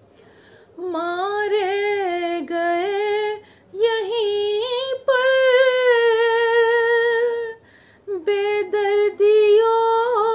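A woman singing an Urdu salaam unaccompanied, drawing out long held, slightly wavering notes in several phrases with short breaths between them.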